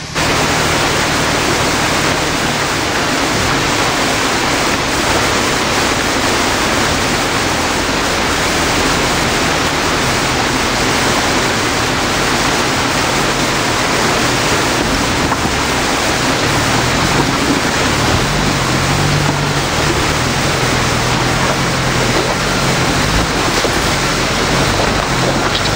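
Steady loud rush of a shallow rocky creek, with the low engine of a Jeep Wrangler YJ running faintly underneath as it wades through the water, a little stronger about two-thirds of the way through.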